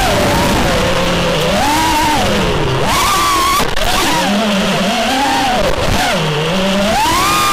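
Racing quadcopter's electric motors and propellers whining as heard from the onboard camera. The pitch rises and falls with the throttle, climbing sharply around three seconds in and again near the end, over a rush of wind noise.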